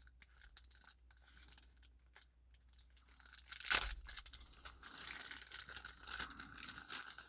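Watch packaging being torn and crinkled open by hand: faint handling at first, a single louder rip a little under four seconds in, then steady crinkling and rustling.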